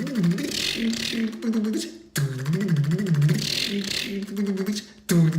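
A person making a mouth-made engine sound effect: a buzzing, pulsing, wavering imitation of an engine cranking over without catching. It comes in three goes, broken off about two seconds in and again near the end.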